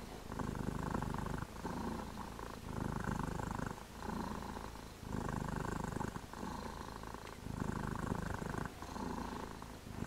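Tabby mother cat purring as her kittens nurse. The purr runs in even stretches of about a second, breaking briefly with each breath.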